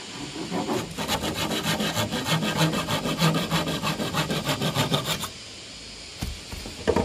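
Handsaw cutting through a green bamboo pole: fast, even back-and-forth rasping strokes that stop about five seconds in, once the pole is cut through. A couple of knocks follow near the end.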